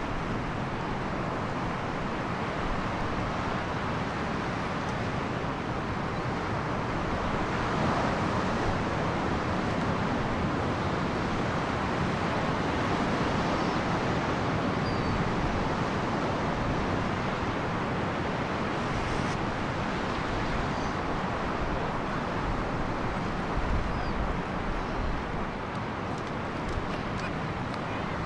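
Ocean surf breaking on a rock platform and washing against a tidal rock pool: a steady, rushing wash of waves, with wind rumbling on the microphone.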